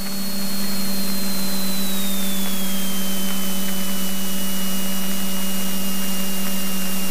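Cessna 172N's four-cylinder Lycoming engine and propeller running steadily, heard inside the cabin as a droning hum over a rushing noise. A faint high whine steps down in pitch about two seconds in.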